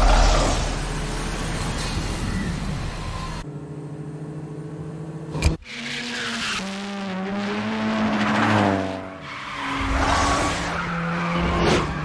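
Two race cars, a Mazda RX-7 FC and a Mitsubishi Lancer Evolution III, being driven hard, with tyres squealing through the corners and engines revving, their pitch rising and falling through the gears. It starts loud and suddenly, with a single sharp knock about halfway through.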